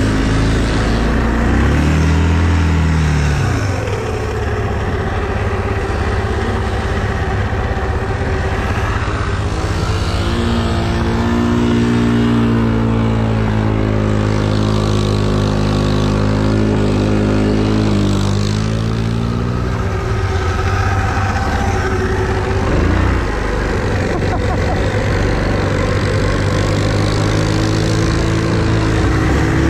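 ATV engine running under load while being ridden, its pitch climbing and dropping repeatedly with the throttle.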